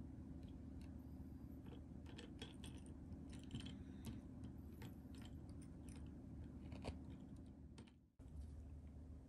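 Faint, irregular light clicks and taps as a kitten moves about inside a wire cage, over a steady low room hum. The sound fades out about eight seconds in.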